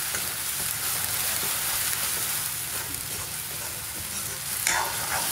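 Onion paste frying in oil in a pan with a steady sizzle, being browned before the chicken goes in. There is a sudden louder stroke near the end, like a spatula stirring.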